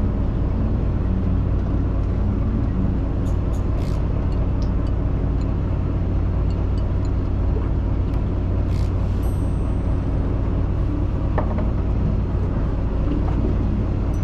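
Fishing boat's engine running at idle, a steady low hum, with a few faint clicks about four and nine seconds in.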